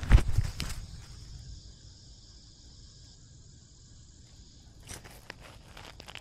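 A steady high chorus of insects, with a loud burst of knocking and rubbing in the first second as the camera worn by a cat is jostled, and a few light rustles and clicks near the end.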